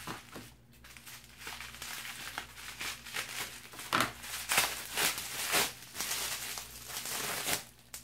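Plastic bubble wrap crinkling and rustling in irregular bursts as a taped-up package is pulled open by hand, loudest about four to six seconds in.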